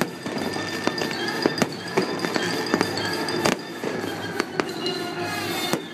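Aerial fireworks going off in a steady barrage: sharp bangs about every half second, over a continuous crackle and rumble.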